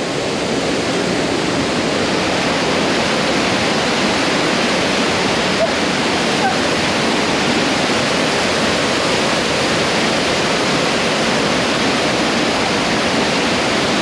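A waterfall plunging into its pool: a steady, unbroken rush of falling water.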